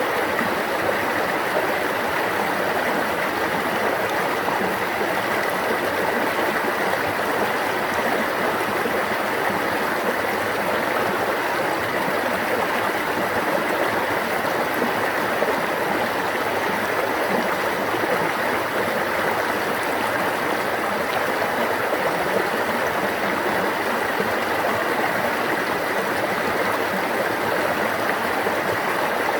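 A stream of running water, a steady, even rush with no change.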